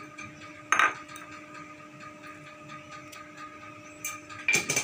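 Crockery knocking on a hard kitchen surface: one sharp clink about a second in, then a louder clatter of a few knocks near the end, over a faint steady hum.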